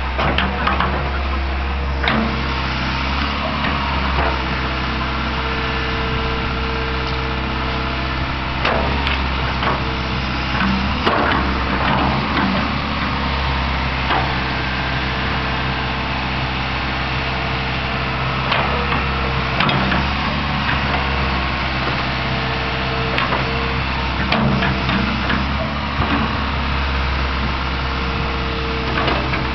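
Fiat-Hitachi EX135 excavator's diesel engine running steadily under working load as the arm swings and the bucket spreads soil, with a higher whine that comes and goes. Several sharp clanks and knocks break in now and then.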